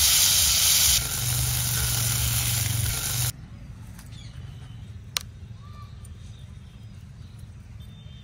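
Loud, steady hiss of steam off a pot of hot water with blackened pieces in it, cutting off abruptly a little over three seconds in. After that comes quiet outdoor ambience with a single sharp click and a few faint chirps.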